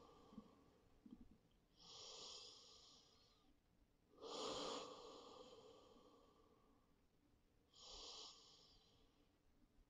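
A woman's faint, slow breathing: three soft breaths, about two seconds in, a longer and louder one in the middle, and one near the end.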